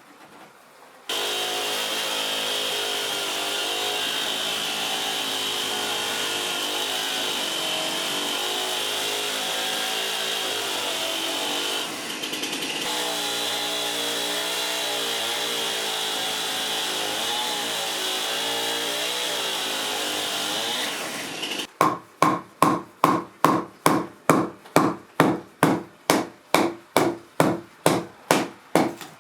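An electric power tool running steadily while cutting or working wood, its pitch wavering under load. About three quarters of the way in it stops and gives way to rhythmic back-and-forth hand strokes on wood, about three a second.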